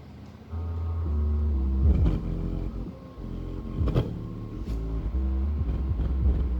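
Bare Samcon 10-inch subwoofer driver, with no enclosure, playing the bass line of a song from an amplifier, kicking in about half a second in. Deep bass notes step from pitch to pitch, with a few sharp beat hits.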